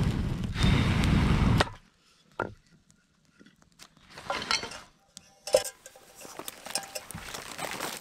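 A person blowing hard into a small campfire to feed the flames: two long breaths of rumbling air on the microphone that stop suddenly. Then quieter handling sounds: a knock, a short rustle, a sharp click and light footsteps in dry brush.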